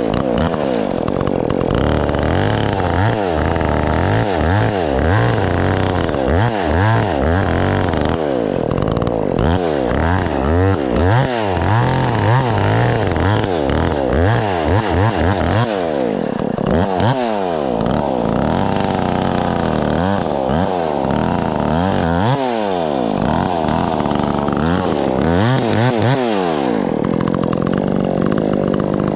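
Chainsaw cutting wood, the engine's pitch swinging up and down again and again as it revs and bogs in the cut, then holding steadier near the end.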